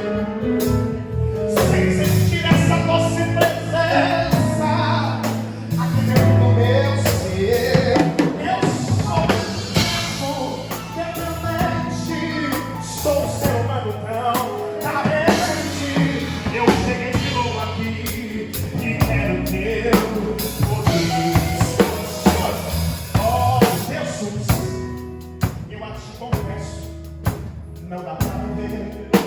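Live gospel worship music: a band with drum kit and bass playing behind a singing voice.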